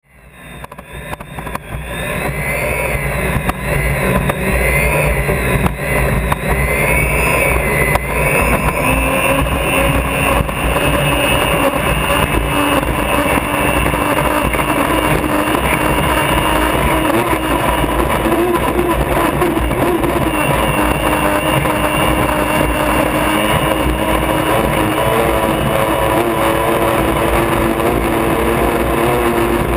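Unlimited hydroplane's turbine engine running at speed, heard from inside the cockpit with wind and water noise. The sound fades up over the first couple of seconds, then stays steady and loud, with a high whine that wavers in pitch for the first several seconds.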